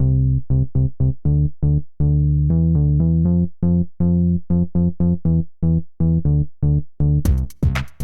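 Background electronic music: a synthesizer keyboard plays a repeating pattern of short, plucked-sounding notes. A drum beat comes in near the end.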